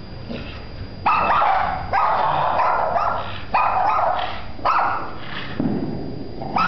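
An American pit bull terrier hanging by her jaws from a tire, giving a series of about five short, loud bark-like vocalizations that each start suddenly, beginning about a second in; the last one is lower in pitch.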